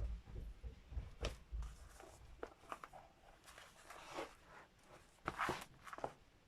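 Soft rustles, scrapes and clicks of paper and thread being handled while a book's signatures are hand-sewn, with a few low thumps in the first couple of seconds.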